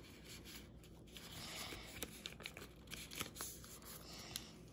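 Soft crinkling and rustling of a torn baseball-card pack wrapper as the cards are slid out of it, with a few faint ticks of card edges.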